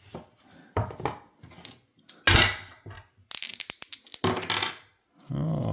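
Dice being rolled for a tabletop baseball game: a series of sharp knocks, then a quick run of rattling clicks as they tumble and settle on a hard surface.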